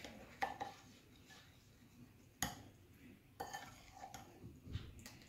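Metal spoon stirring thick melted jaggery syrup in a ceramic bowl, with faint scattered clinks and scrapes against the bowl's side. The sharpest knock comes about two and a half seconds in.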